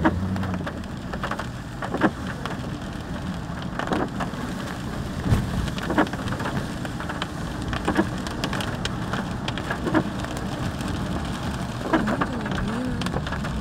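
Rain striking a car's roof and windshield, heard from inside the cabin: a steady hiss with many sharp drop hits scattered throughout.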